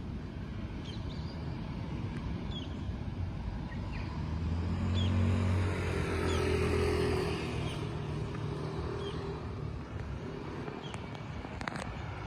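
A motor vehicle passes by, its engine and tyre noise swelling from about four seconds in and fading away by about eight seconds. This sits over steady street background noise, with short bird chirps throughout.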